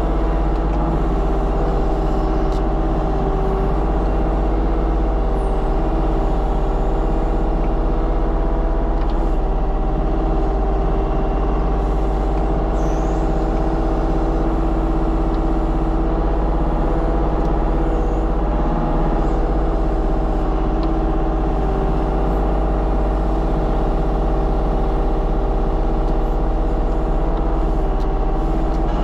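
Diesel engine of a compact earthmoving machine running steadily at a constant speed, with a few faint knocks.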